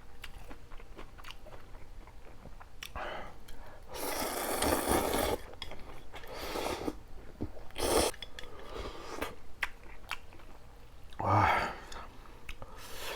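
Close-up eating sounds of ramyeon noodles with rice cakes and dumplings: soft wet chewing clicks, broken by three louder noisy bursts, the longest about four seconds in, another about eight seconds in and one near the end.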